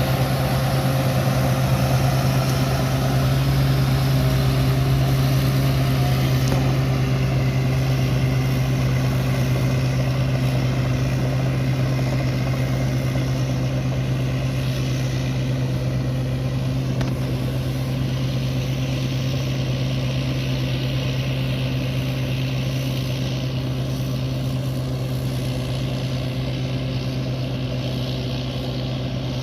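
Large rice combine harvester's engine running steadily at an even speed, a constant low hum with mechanical noise over it.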